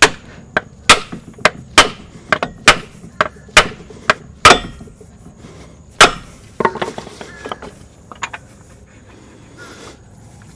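Dead blow hammer striking a seal installer tool, driving the right-hand axle shaft seal into the aluminum case cover of a GM 4T40E/4T45E transaxle. About ten sharp blows, some in quick pairs, fall over the first six seconds, then a few lighter taps as the seal seats flush.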